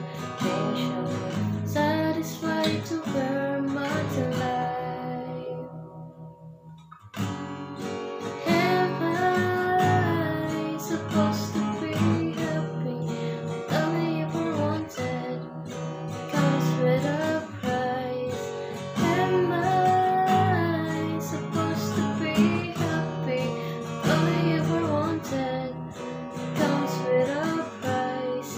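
Acoustic guitar strummed with a woman singing along. About five seconds in, the playing fades down, then starts again loudly about a second later.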